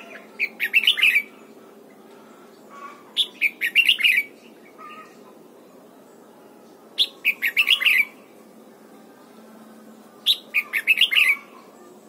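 Red-whiskered bulbul singing: four short, rapid, warbling phrases, each about a second long and roughly three seconds apart.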